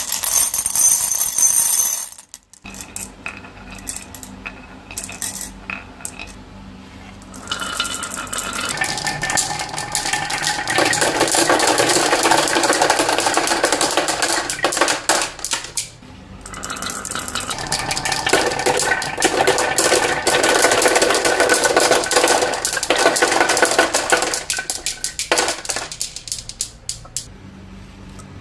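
Marbles rolling and clacking down a toy marble run track: a few scattered clicks at first, then two long stretches of dense, rapid rattling clatter, each about eight seconds, with a brief pause between them.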